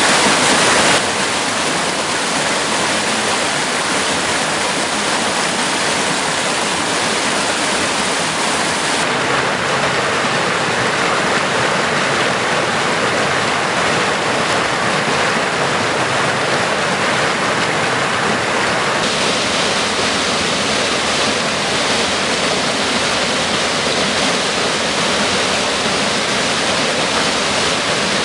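A woodland stream in flood, its muddy water rushing hard over rocks and small cascades in a steady, loud rush. The tone of the rush changes abruptly a few times, about a second in, around nine seconds in and again around nineteen seconds in.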